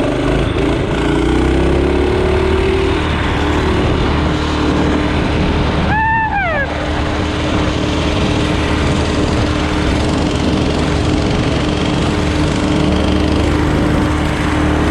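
Mini bike's small gasoline engine running steadily under way, with a dense, loud noise throughout. A short yell cuts through about six seconds in.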